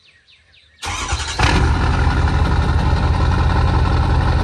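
A lifted Ford Super Duty diesel pickup being started: the engine cranks briefly about a second in, catches about half a second later, and runs loud and steady.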